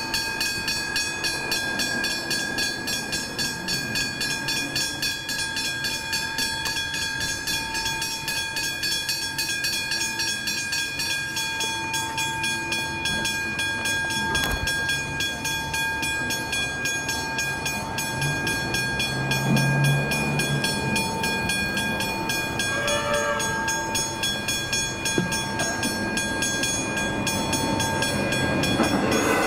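Level crossing warning bells (Westinghouse electronic hybrid bells) ringing continuously in a rapid, even ding pattern while the crossing is active for an approaching train. A low vehicle engine hum swells briefly about two-thirds of the way in, and the rumble of the approaching train builds near the end.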